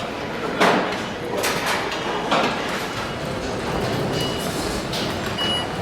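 Steady assembly-hall background noise, broken by several short rushing, clattering swells and a few faint, short high beeps.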